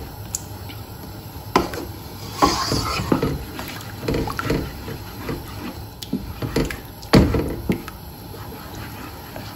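Wooden spoon stirring and pressing a thick semolina, milk and caramelised-sugar halwa mixture in a nonstick wok: wet slapping and squelching with irregular knocks of the spoon against the pan, the loudest about seven seconds in. The pressing is working through clumps of sugar that hardened when the cold milk went in.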